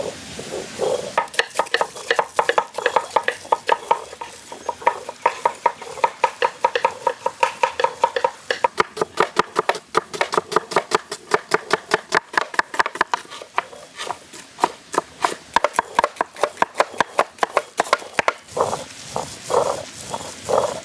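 Hands mixing a large batch of quail with turmeric paste, curd and rock salt in a vessel, making quick, wet strokes, about four a second.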